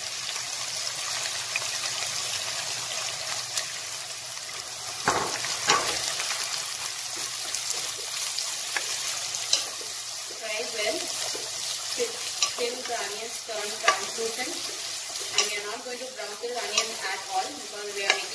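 Sliced onions sizzling in hot oil and ghee in a kadai, with a wooden spatula scraping through them as they are stirred. Two louder knocks come about five seconds in, and the stirring grows busier in the second half.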